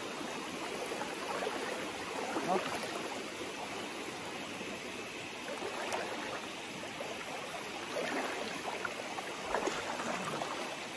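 Water sloshing and splashing with a steady trickling, as someone moves through the water. Small irregular splashes run throughout.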